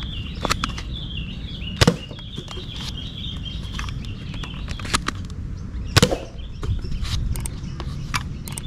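Nerf Mega Talon foam-dart blaster firing at targets: several sharp pops and clacks a second or more apart, the loudest about two and six seconds in.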